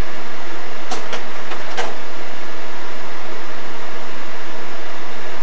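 Slide projector changing to the next slide: four quick sharp mechanical clicks between about one and two seconds in, over a steady hiss.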